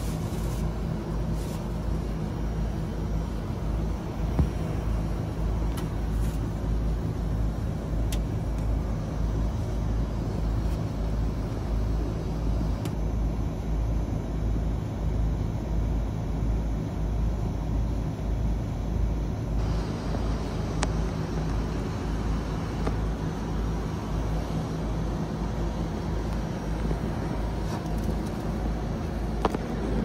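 Air-conditioning outdoor unit running: a steady low machine rumble with a pulsing low hum.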